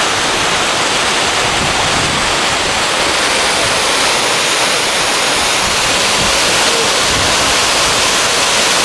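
Martin Creek Falls, a mountain waterfall, rushing steadily and loudly.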